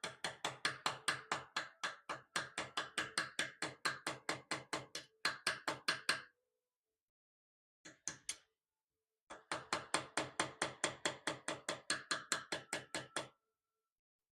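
Blacksmith's hand hammer striking wrought iron on an anvil in quick runs of about five blows a second, with a short metallic ring after the blows. The runs break off twice and stop near the end.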